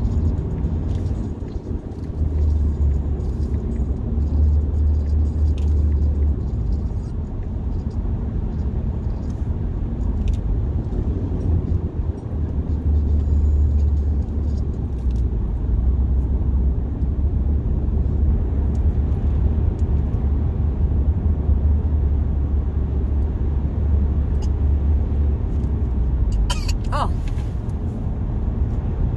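Steady low rumble of tyre and engine noise heard inside a moving car's cabin, swelling and easing in long stretches. A brief sharp sound stands out near the end.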